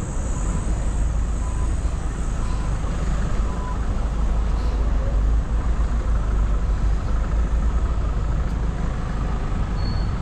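Street traffic: cars and other vehicles passing on the road, a steady low rumble.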